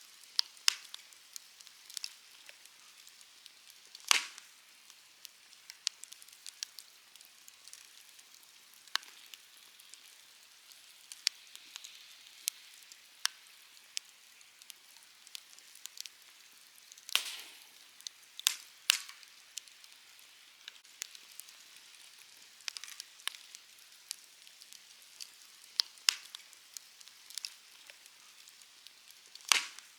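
Wood bonfire crackling, with many small sharp snaps and a few louder pops over a low hiss.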